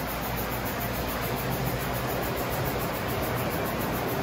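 Steady rumbling hiss of O gauge model trains running around a large layout, with a low hum underneath.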